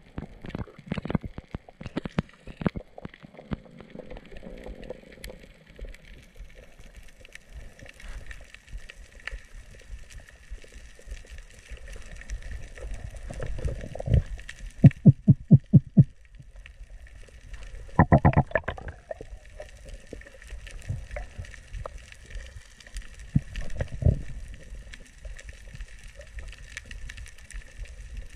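Underwater, a diver making fish-calling sounds with the mouth: scattered clicks and knocks, a quick run of about seven pulses near the middle, and louder bursts later on, over a steady underwater hiss.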